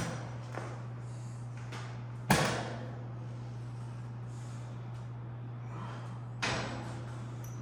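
Weight-stack plates of a cable lat-pulldown machine clanking, twice and about four seconds apart, the first louder, as the stack is let back down between reps. A steady low hum runs underneath.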